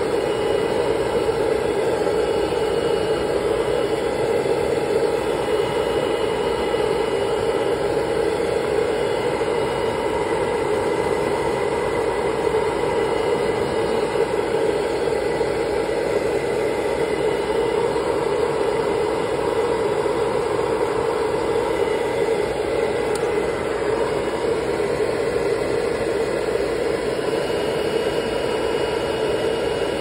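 Pet grooming dryer blowing steadily: a constant rush of air with a steady hum that does not change throughout.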